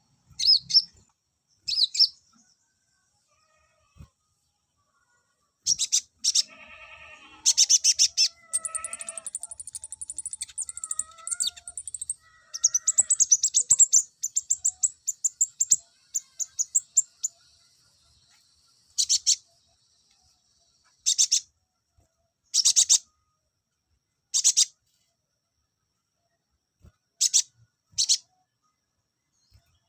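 Male olive-backed sunbird (konin) singing: short, very high, rapid trills repeated every second or two, with a longer run of trilling and a few lower warbled notes in the middle.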